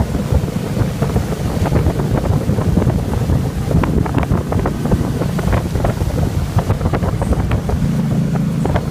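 Wind buffeting the microphone over the steady drone of a motorboat's engine running at towing speed, with water rushing in the wake.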